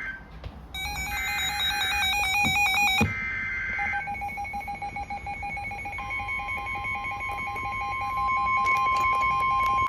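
NOAA Weather Radio alert: buzzy digital SAME header bursts, under a loud stepped electronic alarm from a receiver. About four seconds in a rapid pulsing beep starts, and about six seconds in the steady 1050 Hz weather-radio warning tone comes in. Together they announce the special marine warning that follows.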